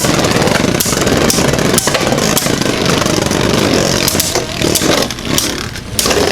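Two Beyblade Burst spinning tops, Vise Leopard and Winning Valkyrie, spinning and clashing in a plastic stadium: a steady whirring rattle broken by many sharp clacks as they collide.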